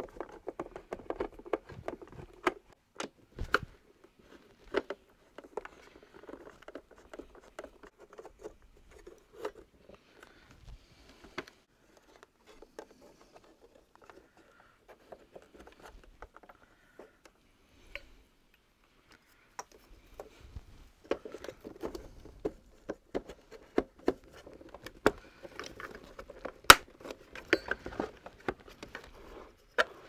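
Irregular clicks, knocks and scrapes of hard plastic vacuum-cleaner parts and hand tools being handled on a workbench. Busiest at the start and again over the last ten seconds, with a quieter, sparser stretch in the middle.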